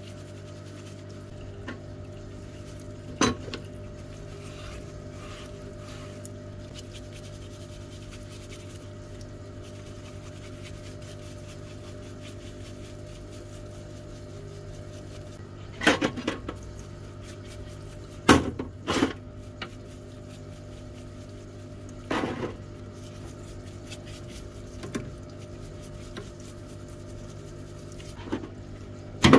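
Steady hum of a parts-washer pump running, with sharp metallic clinks of small rotary-hammer parts knocking against the metal tray as they are scrubbed, about seven clinks, most of them in the second half.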